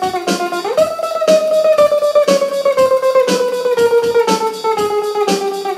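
Electric guitar tremolo picking a descending run on one string: the note slides up early and then steps slowly down the neck. A click keeps time twice a second, at 120 beats a minute.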